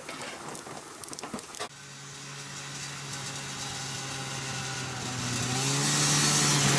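Crackling and clicks from a wood stove fire, then, after a cut about a second and a half in, a Polaris two-stroke snowmobile engine approaching. Its note is steady, rising slightly and growing louder as it nears.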